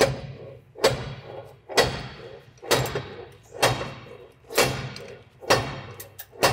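Heavy steel tanker bar striking a rust-seized tank track end connector, a sharp ringing metal clank about once a second, to knock the connector loose.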